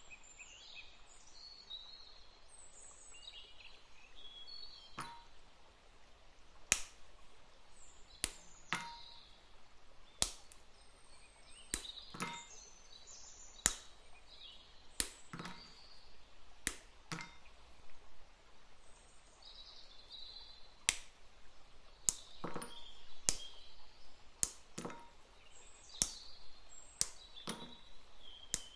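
Dark and milk chocolate bars snapped into pieces by hand, a sharp crack every second or so, pieces dropping into a glass bowl. Birds chirp faintly in the background.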